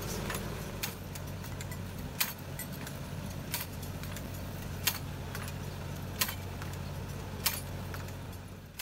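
Tractor engine running steadily while pulling an under-row hoe, with a sharp metallic click about every 1.3 seconds. The sound fades out near the end.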